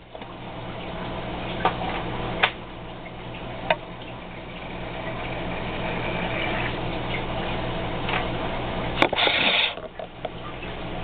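Water bubbling in a small tank as air is pushed through an air stone with a hand-worked Aqua Leash plunger aerator. A few sharp clicks come early, and a louder short gush about nine seconds in. A steady low hum runs underneath.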